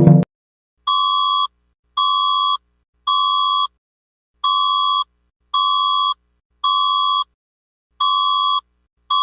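Emergency alert tone: an electronic beep at a single pitch, repeated in groups of three, each beep under a second long and steady in level, with a longer pause between groups.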